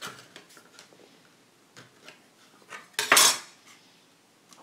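A steel putty knife prying a glued plywood frame off its spacers makes a run of small clicks and cracks, then a loud crack and clatter about three seconds in.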